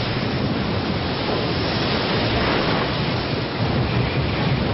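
Flash-flood torrent of muddy, debris-laden water rushing through a town street: a steady, loud rush of water.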